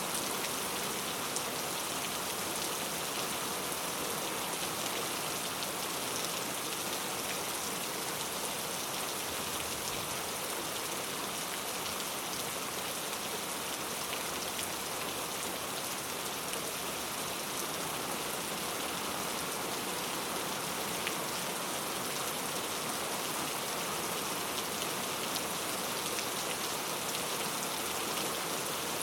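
Steady rain falling on hard surfaces, an even hiss with scattered drops ticking through it.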